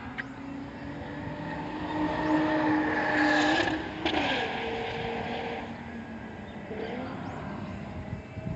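Nissan March (K11) engine pulling hard under acceleration, its pitch climbing and loudest a couple of seconds in. About four seconds in there is a sudden break and the pitch drops, like a gear change. It then runs steadier and eases off, with a short rise near the end.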